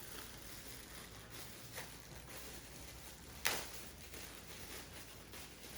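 Faint rustling as merch packaging is handled and opened, with a sharp crinkle about three and a half seconds in and a smaller one near two seconds.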